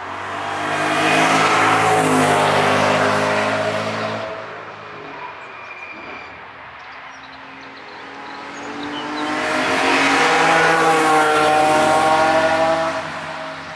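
Two cars pass in turn with their engines working hard, a green BMW first; the second one's engine note rises as it accelerates, then fades near the end.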